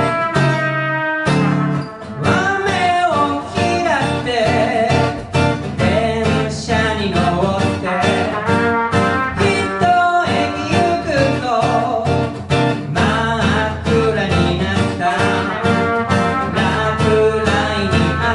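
Live performance of an original song with guitar accompaniment and a melodic lead line that glides between notes. The music briefly drops away about a second in.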